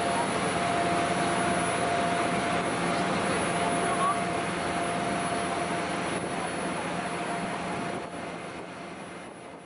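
A boat's engine running steadily under way, with a steady hum and whine over the rush of water and air, heard from on board; it gets quieter about eight seconds in.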